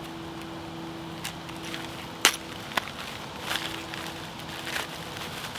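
Line separator clamps being handled: a sharp click about two seconds in, a lighter click just after, and faint rustling and clinking, over a steady low hum.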